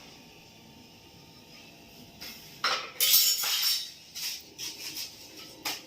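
Clatter and clinking of hard objects being handled, in several short bursts starting a little over halfway through.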